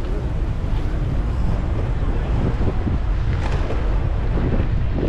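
Wind buffeting the microphone of a moving bicycle rider, a steady low rumble.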